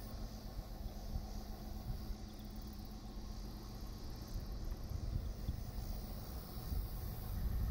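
Wind buffeting the microphone in uneven low gusts, with a faint high chirring of insects from the surrounding field.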